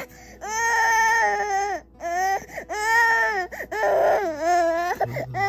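Baby crying in three long, wavering wails of about a second each, with a short cry near the end. The baby is unwell with a cold.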